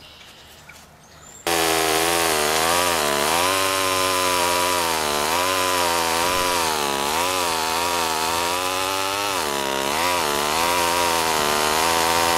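Chainsaw engine running and revving, its pitch rising and falling in slow waves, starting abruptly about a second and a half in. Because the chainsaw is a wooden prop, the sound is a dubbed-in effect, not a real saw at work.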